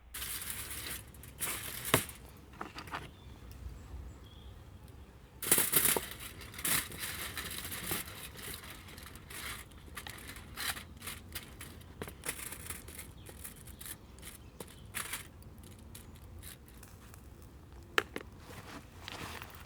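Irregular rustling and crackling, broken by sharp clicks and snaps: a loud click about two seconds in, a louder burst of rustling around six seconds in, and another sharp click near the end.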